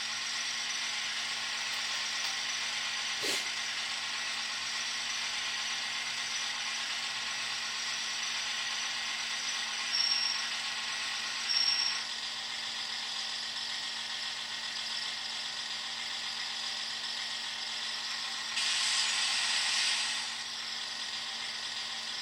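Scale model of a Plasser & Theurer 09-3X tamping machine running slowly along the track with a steady whir. A click comes about three seconds in, two short high beeps around ten and twelve seconds, and a louder hiss lasts a second or two near the end.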